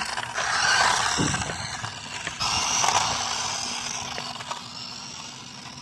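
Toy-grade RC car with a high-speed 130 brushed motor running on 2S, its motor, plastic gears and hard tyres making a rattling hiss as it drives fast. The sound swells twice and fades toward the end.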